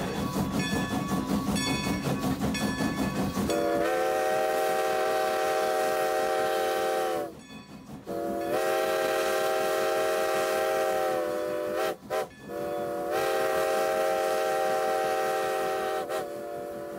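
Steam locomotive chime whistle blown in long blasts, with two short toots between the second and third, each blast falling slightly in pitch as it cuts off. Before the first blast there are a few seconds of rhythmic clicking and rumble from the running train.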